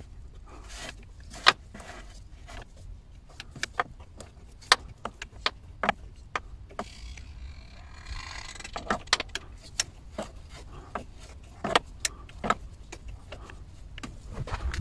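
Scattered metallic clicks and knocks of a wrench and gloved hands working the clutch slave cylinder's bleed screw during clutch bleeding. Midway there is a short rushing hiss as the screw is opened and the slave cylinder pushes back while fluid runs out into the drain hose.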